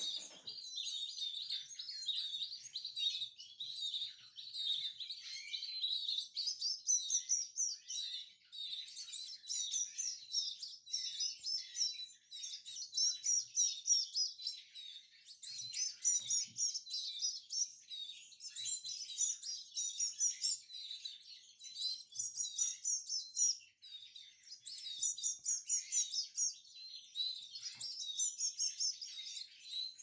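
Canary nestlings cheeping to beg for food: quick runs of rapid, high-pitched peeps, breaking off only briefly.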